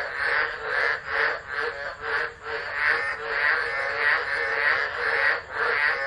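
Dense chorus of many tropical frogs calling at once in the wet season, loud and continuous, with overlapping calls that swell and ease in quick, uneven waves.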